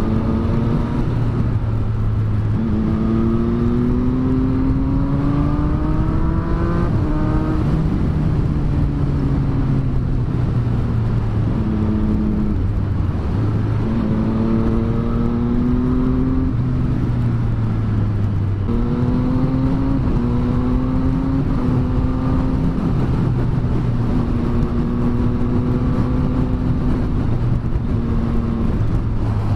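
Triumph Street Triple 765R's inline three-cylinder engine pulling under acceleration on the road, its pitch climbing and then dropping at several gear changes, over steady wind rush.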